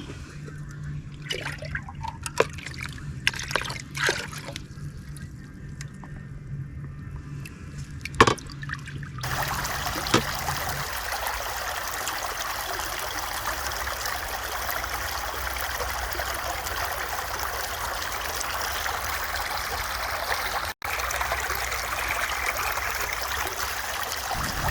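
A few light clicks and knocks, then water pouring in a steady stream for about fifteen seconds, broken once by a brief gap near the end.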